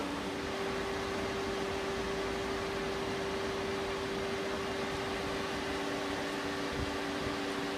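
Steady machine hum: an even noise with one steady mid-pitched tone, unchanging throughout.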